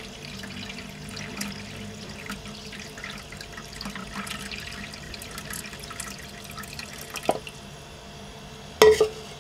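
Water poured from a plastic jug into the water reservoir of a Philips electric food steamer, a steady splashing trickle that stops about seven seconds in. A light knock follows, then a louder double knock near the end.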